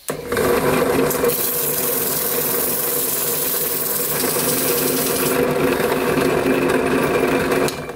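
Drill press motor starting up and running steadily, spinning an SU carburettor dashpot while 400-grit sandpaper is pressed against it. A hissing sanding sound rides over the motor hum from about a second in until about five seconds in. The machine winds down near the end.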